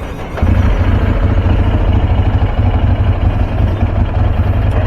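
Motorcycle engine running as the bike moves off, under a heavy low rumble that jumps up suddenly about half a second in and then holds steady and loud.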